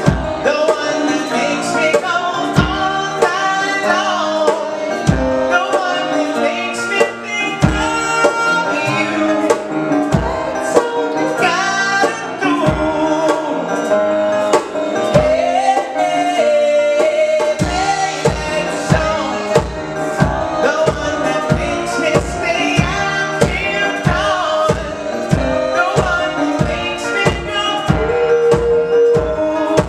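Live band playing a pop song on acoustic guitar, keyboard and hand drum, with a male lead voice singing. A steady low beat of about two strokes a second comes in about two-thirds of the way through.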